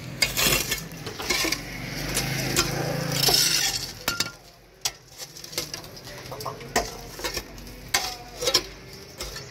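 A metal hoe chopping and scraping at packed soil and tree roots, with sharp clinks and knocks. There is a stretch of steady scraping in the first few seconds, then single strikes, some loose dirt falling.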